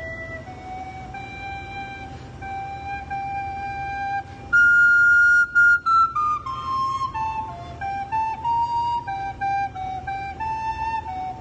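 A small wooden end-blown fipple flute played solo with a slow tune. Held middle notes come first; about four and a half seconds in a loud high note sounds, then steps down in a descending run, and shorter notes follow.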